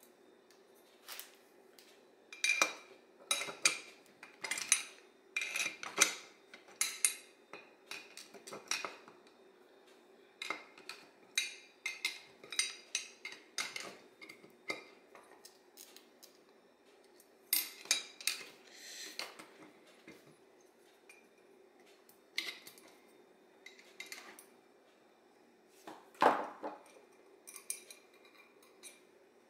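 Small metal parts of an Autolite 2100 carburetor clinking and tapping against each other and the bench as it is reassembled by hand, in irregular bursts with a louder knock near the end. A faint steady hum runs underneath.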